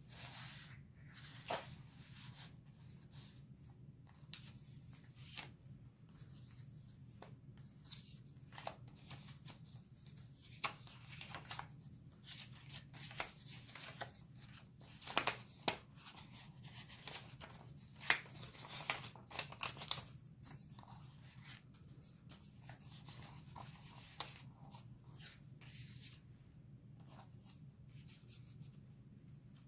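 Paper rustling and scraping as journal cards and small paper envelopes are slid out of and back into the pockets of a paper journal. The sound comes in short, irregular rustles, a few sharper ones about halfway through, over a faint steady low hum.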